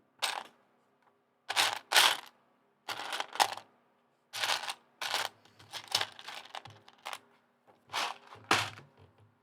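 Loose plastic Lego pieces being handled: about a dozen short clattering rattles with pauses between them.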